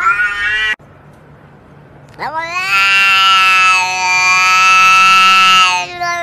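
A short cat meow that cuts off suddenly, then after a pause a domestic cat's long, drawn-out yowl held steady for about three and a half seconds, with another yowl beginning at the end.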